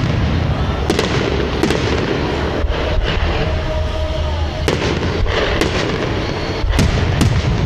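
Fireworks display: aerial shells bursting in a steady run of sharp bangs over a continuous low rumble and crackle.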